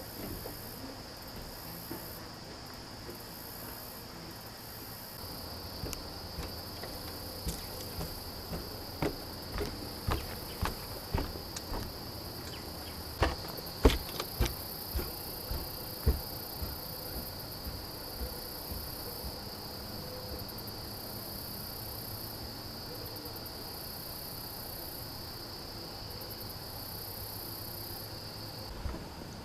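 Cricket chirping in a steady high-pitched trill, with a run of irregular knocks and clicks from about six to seventeen seconds in.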